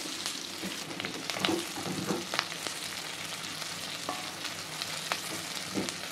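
Sliced onions and cumin seeds sizzling in hot oil in a stainless steel kadai as they are sautéed until soft. A plastic slotted spatula stirs them, scraping and knocking against the pan a few times.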